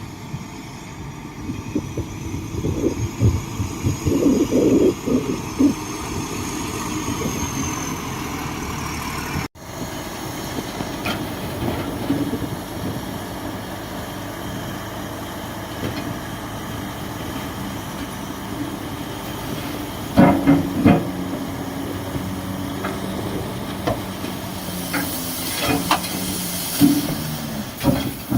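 Shantui DH17C2 bulldozer working, its engine running steadily with irregular clanks and knocks. There is a sudden break about a third of the way in, and a hiss near the end.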